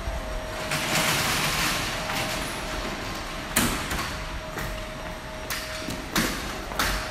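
City street sounds: a vehicle swishes past about a second in, followed by a few sharp clacks or knocks.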